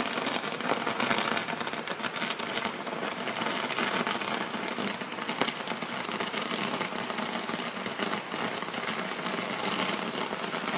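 Dense, steady crackling and fizzing of a burning pyrotechnic firework ladder, its fuses and sparks going off rapidly and continuously.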